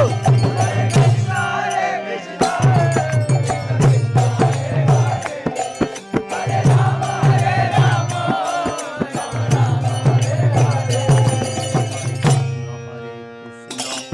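Devotional kirtan: voices singing a chant over a rhythmic drum beat and sharp percussion strokes. Near the end the singing and drum drop out, leaving a single held tone.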